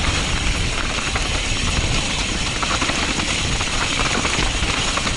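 Mountain bike descending a rocky, rutted dirt trail: wind buffeting the camera microphone, with tyres crunching over loose dirt and stones and the bike rattling over the bumps.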